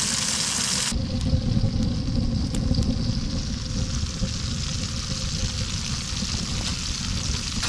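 Fish frying in oil in a large pan, a hissing sizzle that cuts off about a second in. It gives way to a low, uneven rumble of wind on the microphone, with a faint steady hum and a few small pops.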